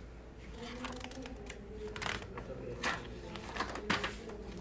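Paper rustling and crackling as a page of a spiral-bound printed book is lifted and turned, with a few sharp crinkles between about two and four seconds in.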